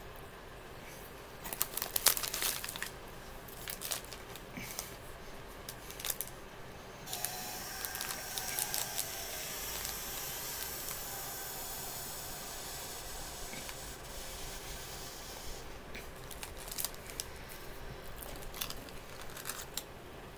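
A snack wrapper crinkling and crackling as it is handled and folded up, in bursts, loudest about two seconds in. A steady hiss runs through the middle for about nine seconds, then cuts off.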